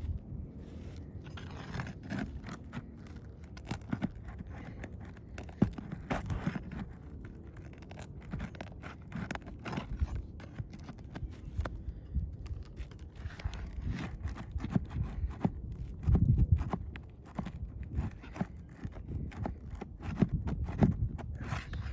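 Scraping and sharp clicks of a pry bar worked under asphalt shingles to pull out roofing nails, with scattered dull thumps and a louder run of them about two-thirds of the way through.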